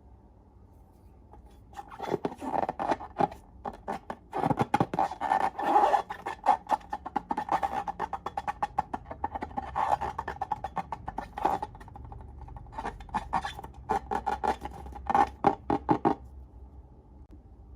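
Slime being squeezed and worked by hand: a long run of quick, irregular clicks and pops that starts about two seconds in, eases briefly in the middle, and stops a couple of seconds before the end.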